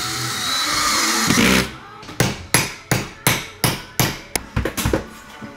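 A cordless drill whirring as it drives a screw into drywall. It stops after about a second and a half, and then a hammer strikes overhead in a steady run of blows, about three a second.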